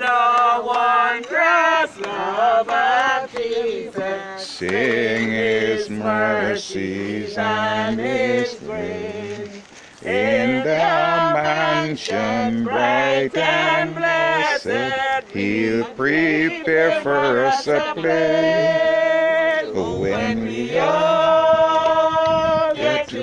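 A group of voices singing together, with a brief pause about ten seconds in and long held notes in the last few seconds.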